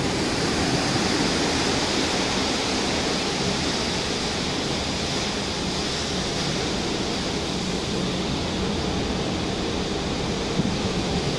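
Steady rush of strong wind and rough, breaking sea in a storm at sea.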